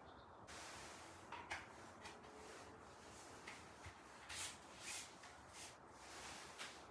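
Faint handling sounds: a few soft clicks and rubs as a small part is fitted onto the top of an electronic drum kit's rack pole.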